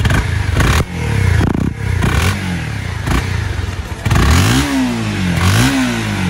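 Honda CBR 250R's single-cylinder engine on its stock exhaust, revved in several blips so the engine note rises and falls repeatedly. The stock muffler keeps it subdued, a sound the owner finds barely audible.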